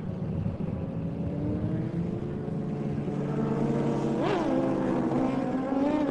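Superbike racing motorcycle engines running and changing pitch. About four seconds in, one engine revs up and straight back down, and the pitch rises again near the end.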